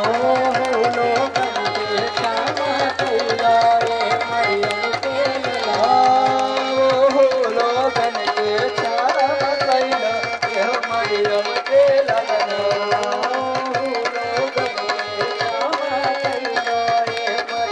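Hindi Christian devotional music: a keyboard melody over a fast, steady tabla-style drum rhythm, with hands clapping along.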